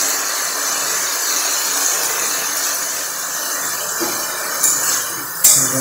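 Cauliflower, potato and tomato pieces sizzling in oil in a metal kadai, a steady hiss. Near the end come two sharp clicks.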